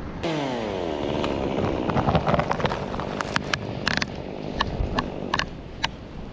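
Chainsaw cutting into a messmate eucalyptus trunk close to the microphone, its engine pitch falling in the first second or so. A series of sharp clicks comes in the second half.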